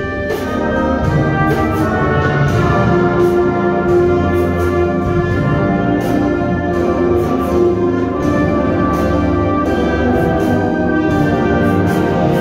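A high school concert band playing a holiday piece: brass sustaining full chords over a steady beat of sharp percussion strokes.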